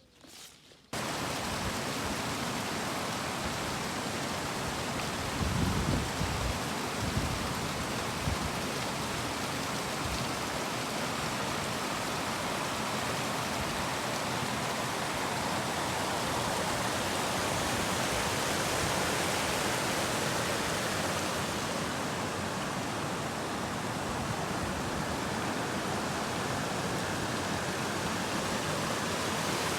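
River water flowing in a steady rushing wash, starting suddenly about a second in, with a few low bumps around six to eight seconds in.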